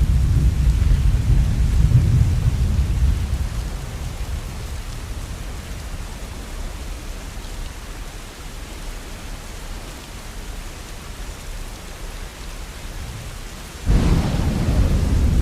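Steady falling rain with thunder. A deep rumble of thunder dies away over the first few seconds, then a sudden loud clap of thunder breaks out near the end and keeps rumbling.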